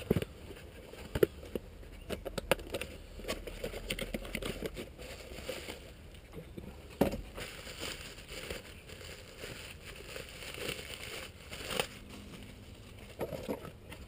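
A plastic bag crinkling and rustling as a replacement HVAC control board is handled, with many small clicks and a few sharper knocks, about 1 s, 7 s and 12 s in.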